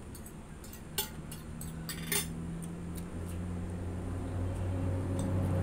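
Two light clinks of tableware on a plate, about one and two seconds in, with a low rumble building in the second half.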